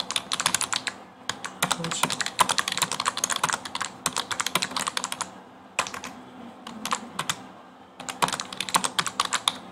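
Typing on a computer keyboard: quick runs of keystroke clicks, with a pause of about two seconds past the middle before a last flurry.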